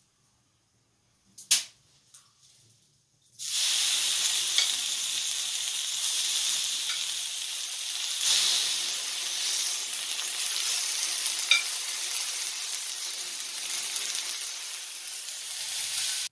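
Beef tenderloin steaks sizzling loudly on a hot ribbed griddle pan over a wood fire, starting suddenly about three seconds in, with a few light clicks of tongs. Before it, a single sharp knock.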